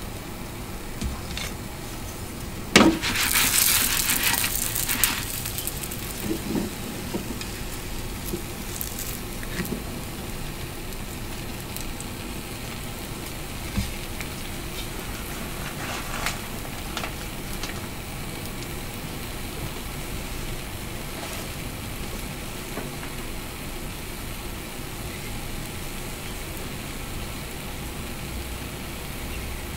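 Mochi rice cakes cooking in a small pan over a gas burner: a steady hiss with light sizzling and scattered crackles. About three seconds in, a sharp knock is followed by a loud burst of sizzling and crackling lasting about two seconds.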